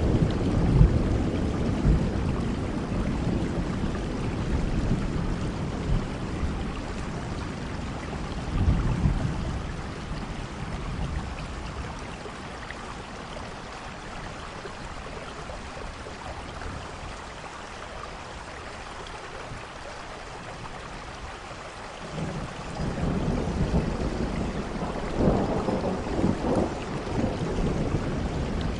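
Steady rain with rolling thunder. A rumble fades out over the first several seconds, the rain goes on alone for a while, and a new roll of thunder builds up near the end.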